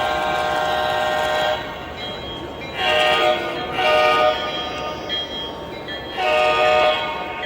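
Train horn sounding a chord of several notes: one long blast that cuts off about a second and a half in, then three shorter blasts.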